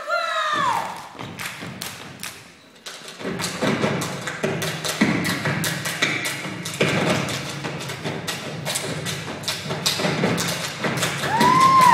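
Step team stomping and clapping in unison on a stage floor, a quick, even rhythm of sharp strikes that sets in about three seconds in after a brief lull. Audience shouts come in near the end.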